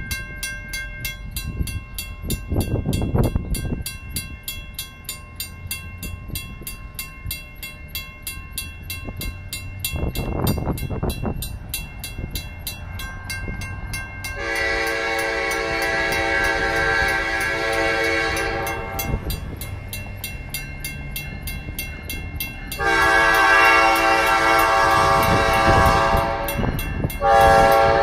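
A WCH mechanical crossing bell ringing steadily, several strikes a second. Over it a diesel locomotive horn sounds two long blasts, about halfway through and a few seconds later, and starts a third near the end, the whistle signal for the crossing as the Dakota and Iowa Railroad train approaches.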